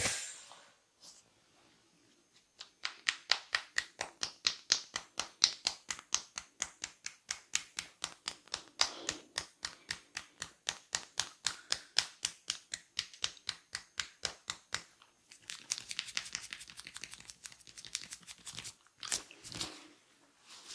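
A sharp snap as it begins. Then a barber's hands tap rhythmically on a client's head during a massage, about four quick even taps a second for some twelve seconds. Near the end the hands rub over the hair and skin.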